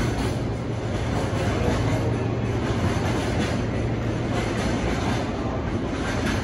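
Freight train of oil tank wagons rolling away along the rails at low speed, a steady low rumble of wheels on track.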